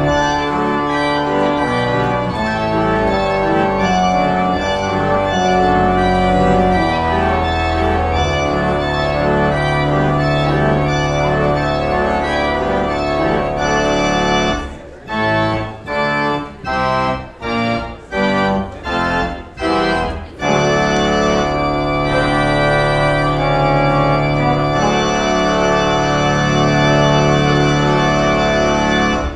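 Organ music: full, long-held chords over a sustained bass, broken around the middle by a string of short separated chords before the held chords return; it stops abruptly at the end.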